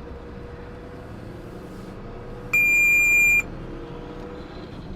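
A single high electronic beep, held steady for just under a second about two and a half seconds in, over the steady drone of a lorry's engine and road noise.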